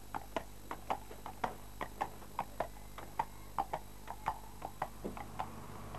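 Horse's hooves clip-clopping on an asphalt road at a walk: an even stream of sharp clicks, about four or five a second, that stops about five and a half seconds in.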